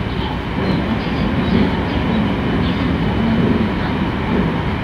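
Steady running noise of a Marine Liner electric train heard from inside its front car: the wheels rolling on the rails at speed.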